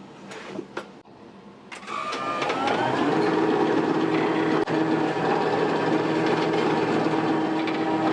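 An electric kitchen machine switches on about two seconds in, its motor whining up in pitch for about a second and then running at a steady hum. A few light clicks and knocks come before it starts.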